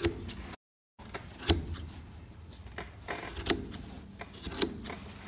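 Large carpet shears snipping off the leftover yarn ends of a freshly knotted row on a hand-knotted rug, trimming the pile even. About four short, sharp metallic snips a second or so apart, the loudest about one and a half seconds in.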